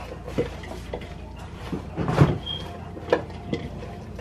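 Gloved hands tossing shredded red cabbage salad in a ceramic bowl: scattered light rustles and knocks, the loudest about two seconds in, with a brief squeak just after it.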